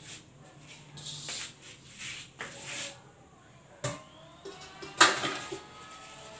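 Kitchen clatter: scattered knocks and rustling of cookware being handled, with one loud metallic clank about five seconds in.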